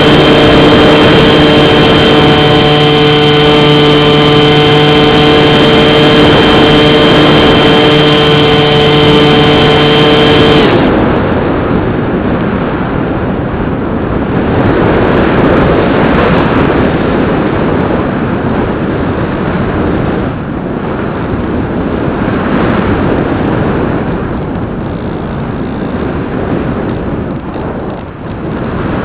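Bixler 2 RC plane's brushless pusher motor and propeller running with a steady whine, picked up by the onboard camera. About ten seconds in the motor cuts off, leaving only wind rushing over the airframe and microphone as the plane glides.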